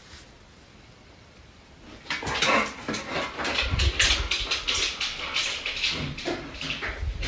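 Yellow Labrador retriever scrambling off across a hard floor: a quick, irregular run of claw clicks and paw thumps starts about two seconds in, after a quiet start.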